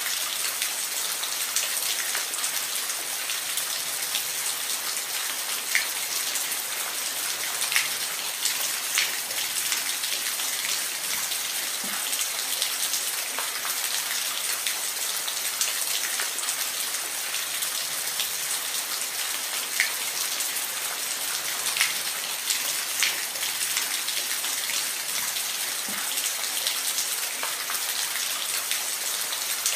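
Steady rain falling, an even hiss with individual drops ticking sharply on a hard surface every second or two.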